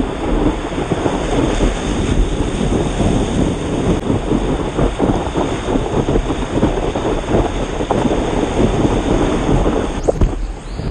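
Loud, fluttering rumble of wind buffeting a surfboard-mounted camera's microphone, mixed with the rush and splash of a breaking wave's whitewater as the board rides it. The noise briefly dips and changes near the end.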